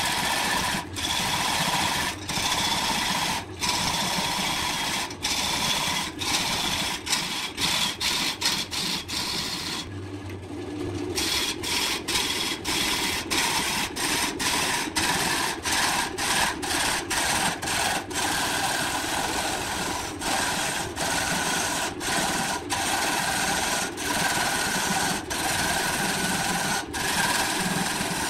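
Wood lathe running while a gouge cuts into a large spinning wood blank: a steady rough cutting and scraping noise over the motor's hum, broken by frequent short dips. About ten seconds in, the cutting stops for about a second and only the low motor hum is left.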